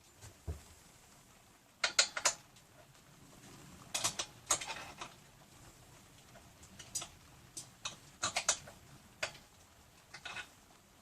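Light clicks and clinks of small hard parts or hand tools being handled, coming in short clusters of a few strikes each.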